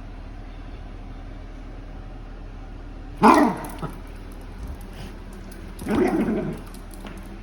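Senior dog barking twice: a short, sharp bark about three seconds in, then a longer, rougher bark about six seconds in.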